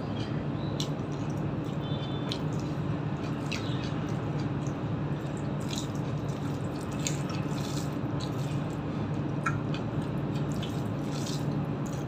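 Fingers mixing and squeezing rice with curry on a steel plate: scattered small wet squelches and clicks, over a steady low hum.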